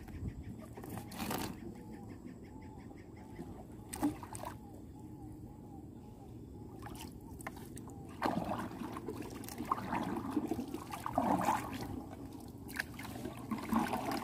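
Water splashing and trickling, with a couple of sharp knocks, as baited lobster traps are handled and set in the water. A faint call repeats about twice a second through the first half.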